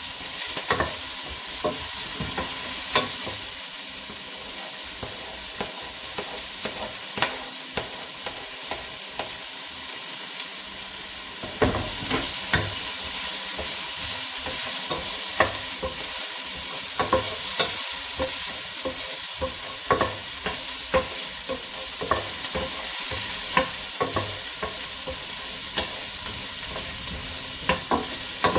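Onions and garlic sizzling in oil in a frying pan, with a utensil repeatedly clicking and scraping against the pan as they are stirred. The sizzle grows louder about twelve seconds in.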